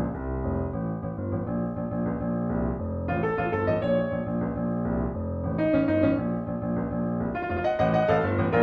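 Background intro music led by piano, with higher notes joining a few times.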